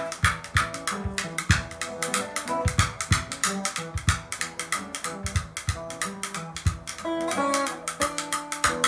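Soundtrack music: a plucked guitar with a drum beat.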